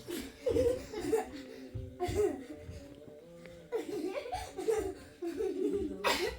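A person laughing in several bouts, over faint background music.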